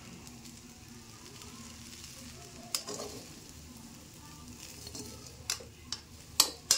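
Fried rice with peas being stirred and tossed with a spatula in a kadhai, with a faint steady sizzle and a few sharp scrapes and clinks of the spatula against the pan, most of them near the end.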